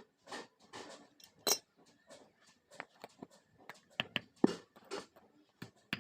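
Metal pieces clinking and knocking against each other in irregular, uneven strokes, a few of them ringing briefly.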